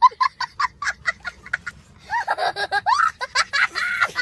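High-pitched cackling from a meme sound clip: a run of quick staccato bursts, about six a second, then longer rising whoops in the second half.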